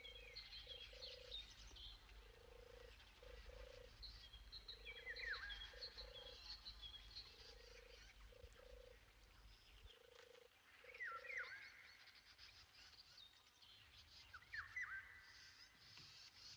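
Faint wild animal calls: a low, level three-note hooting call repeated about every two and a half seconds, stopping about eleven seconds in, over the higher chirps and quick falling whistles of small songbirds.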